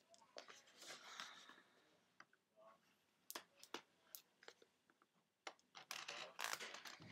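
Faint crinkling and crackling of plastic packaging being handled and pulled off a boxed keyboard, with a few sharp clicks about halfway through and denser crinkling near the end.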